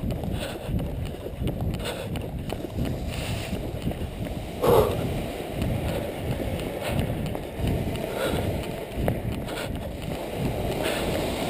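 Footsteps on a concrete floor and gear rubbing against a body-worn camera as the wearer walks, heard as a dull rumble with a pulse at each step. A brief louder sound comes about halfway through.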